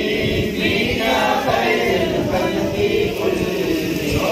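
Men's voices singing an Urdu devotional salaam in chorus.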